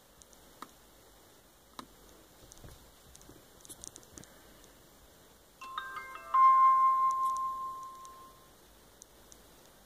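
F90 dash cam's power-on chime from its small speaker, the sign of the unit booting up. A few quick electronic notes come about five and a half seconds in, then one held note fades away over about two seconds. Faint clicks and handling noise come before it.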